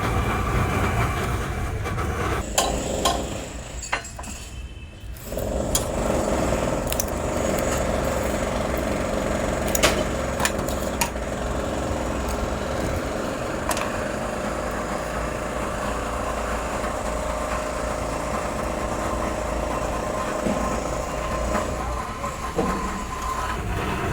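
Workshop machinery running steadily, with sharp metal knocks and clanks now and then, in the metal-working of scrap compressors.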